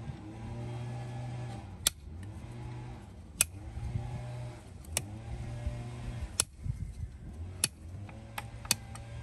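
Sharp metallic clicks, about one every second or so, as a farrier's steel hand tools work the nails of a horseshoe on the hoof, over quiet background music with a low droning tone.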